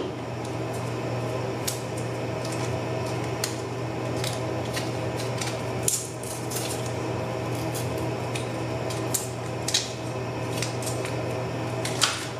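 Irregular small clicks and crinkles from a coiled USB-C charging cable being unwrapped and handled, over a steady low hum.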